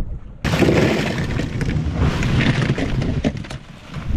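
Ice cubes poured over freshly caught fish in a plastic cooler box. A dense clattering rattle starts suddenly about half a second in and tails off near the end.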